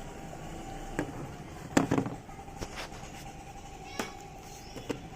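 Scattered sharp clicks and knocks of hands and tools handling a refrigerator's control board and its plastic housing, over a steady faint hum. The loudest knocks come in a cluster about two seconds in.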